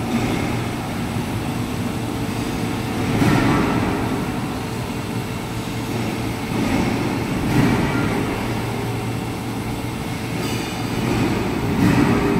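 Large engine lathe taking a slow cut in hardened steel with a carbide-tipped tool: a steady machine rumble, with the cutting noise swelling every four seconds or so.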